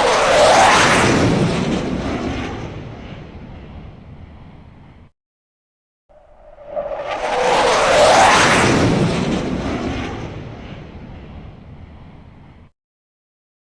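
F-16 fighter jet flying past: a roar that swells to a peak with a falling whine, then fades, heard twice in identical passes. Each pass cuts off suddenly into silence.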